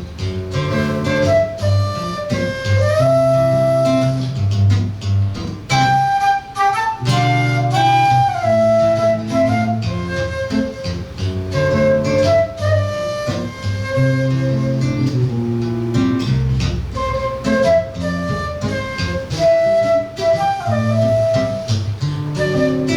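Live flute and seven-string guitar duo playing: the flute carries a melody of held and gliding notes over plucked guitar chords and a bass line.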